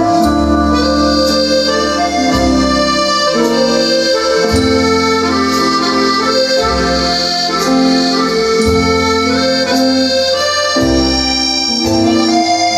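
Instrumental music with sustained chords over a bass line that changes about every two seconds, played back through a homemade loudspeaker as a sound test.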